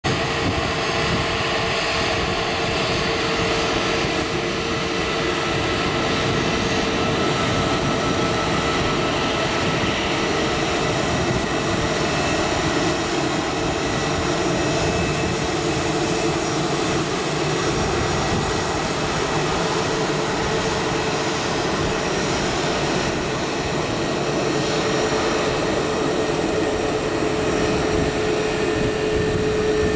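Airbus A320neo airliner's turbofan engines running at taxi power as the jet rolls along the taxiway: a steady rushing noise with a steady hum and fainter, higher whines running through it.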